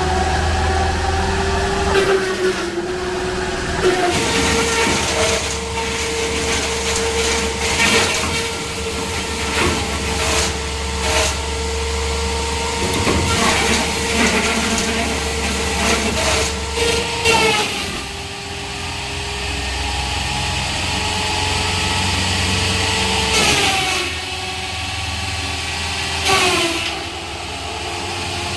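Drum-type wood chipper and sawdust machine running, with a steady hum that dips in pitch several times and many sharp cracks and knocks of wood being chipped.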